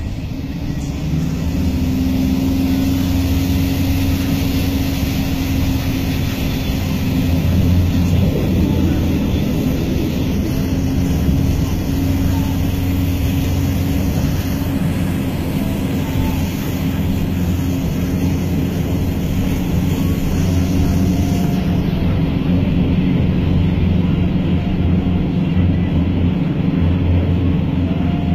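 Car engine running steadily in a low gear, heard from inside the cabin, with the wash of floodwater against the car as it drives through a flooded road.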